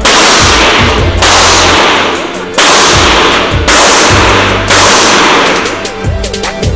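Five gunshots about a second apart on an indoor shooting range, each followed by a long echoing decay, with hip-hop music playing underneath.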